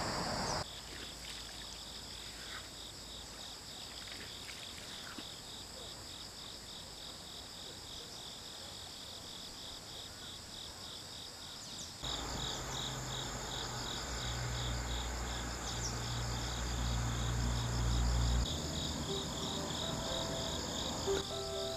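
Crickets chirping in a steady, rhythmic pulse. About halfway through, a low rumble joins in for several seconds, then stops.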